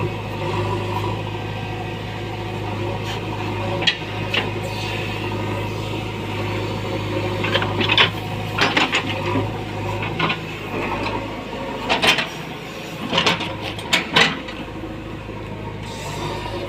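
Backhoe loader's diesel engine running steadily, with loud clanks and knocks over it, several close together from about eight to fourteen seconds in. The low engine hum drops away about twelve seconds in.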